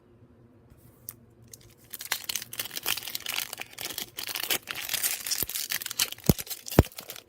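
A foil trading-card pack wrapper being torn open and crinkled, a dense crackling run with sharp clicks that starts about two seconds in.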